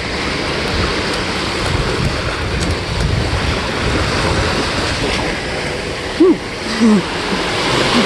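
Small bay waves lapping and washing up the sand at the water's edge, a steady rushing noise with wind on the microphone. Two short, louder sounds stand out about six and seven seconds in.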